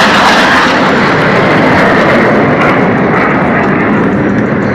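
Loud jet roar of a formation of F/A-18 Hornet jets flying past, slowly fading as they move away.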